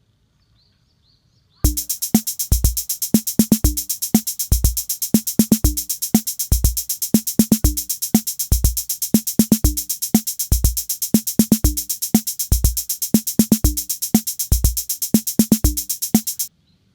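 Electronic drum-machine beat: deep kick drums and mid-pitched drum hits under a steady rapid hi-hat, in a pattern that repeats about every two seconds. It starts about a second and a half in and stops abruptly near the end.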